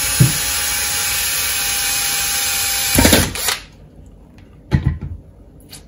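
Cordless drill running steadily as a small bit bores a hole through a plastic pipe coil former, the hole for the antenna wire to go into. The drill stops about three and a half seconds in, followed by two short knocks.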